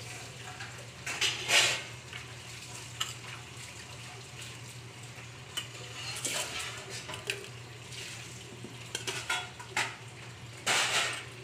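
Steel spoons clinking and scraping against steel bowls and a steel plate as food is served out, in scattered clicks and a few short scrapes.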